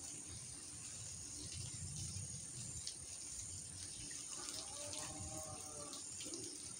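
Outdoor ambience after heavy rain: a steady wash of water-like noise under a continuous high, thin insect tone, with a faint pitched call about four seconds in.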